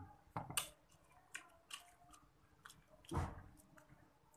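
A person eating crab with his fingers: faint wet chewing and lip-smacking with scattered small clicks, and one louder, longer mouth sound about three seconds in.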